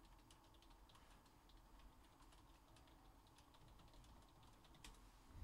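Faint computer keyboard typing: scattered, irregular key clicks, with one louder click near the end.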